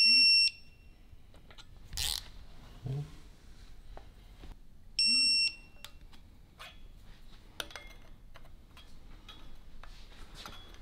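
Two electronic beeps, each about half a second long and high-pitched, about five seconds apart. Light knocks and metal clinks of work in between.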